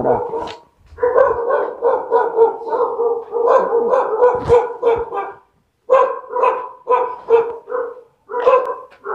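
Dog barking repeatedly in quick runs of barks at a steady pitch, pausing briefly about five and a half seconds in.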